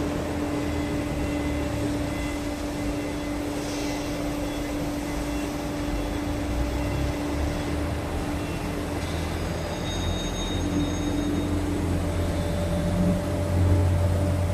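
Steady hum of factory machinery with a constant pitched tone, and a low rumble that grows louder near the end.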